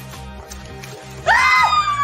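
Background music with a steady beat; a little over a second in, a loud high-pitched scream of excitement breaks in and is held for about a second.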